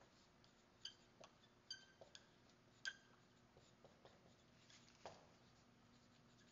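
Dry-erase marker writing on a whiteboard: faint scattered strokes and taps, with two short high squeaks of the marker tip.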